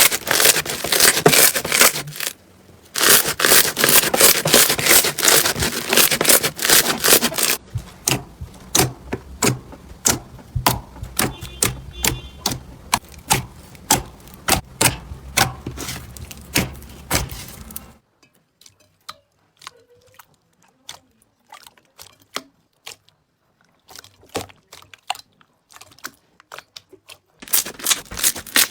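Slime being squeezed and poked by hand, making dense crackling and clicking. About eight seconds in it thins to separate sticky pops and clicks, then for about ten seconds only faint, occasional clicks, before the dense crackling returns near the end.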